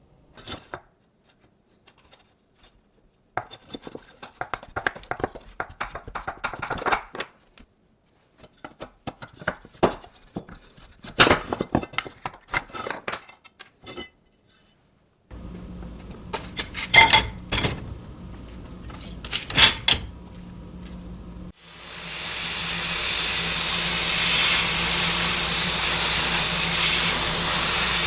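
Small metal parts clinking and rattling as they are handled. Past halfway a motor starts humming, and in the last quarter a loud, steady hiss like a jet of air or blasting starts and keeps going.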